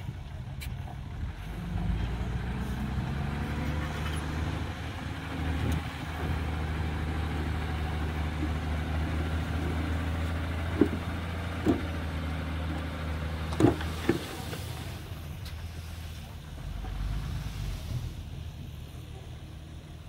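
Dump truck's diesel engine revving up and running steadily under load while the hydraulic hoist tips the bed and the load of dirt pours out. A few sharp knocks come about halfway through, and the engine eases off near the end.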